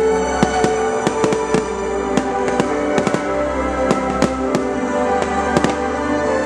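Fireworks display, with shells bursting and crackling in quick succession, several bangs a second, over steady music.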